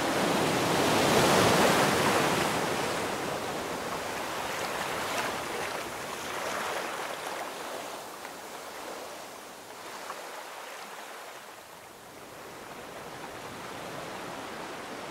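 Sea waves washing up a sandy beach. A wave swells to its loudest about a second in, then slowly draws back and dies down.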